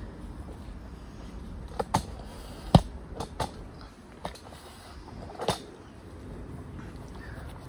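Several sharp knocks and clicks, irregularly spaced over a few seconds with the loudest about three seconds in, from a hand-pumped hydraulic lift hoisting a BMW M47 diesel engine off the floor onto a hanging scale. A low steady hum lies under them.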